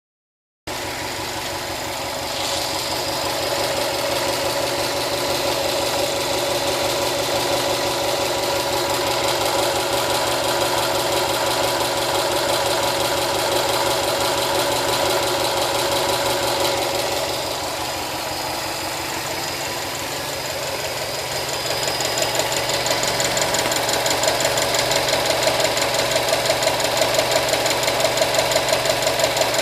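2013 Subaru WRX STI's turbocharged flat-four engine running with a rapid, even ticking, getting louder in the last third. The car is nearly new, and the owner is unsure whether the tick is normal for this engine.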